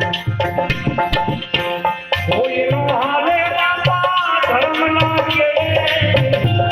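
Bhajan (santvani) music: tabla drumming with quick strokes under a melody, which bends in pitch around the middle.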